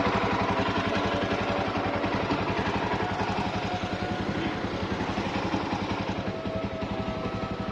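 Motorcycle engine running steadily, with an even, rapid beat.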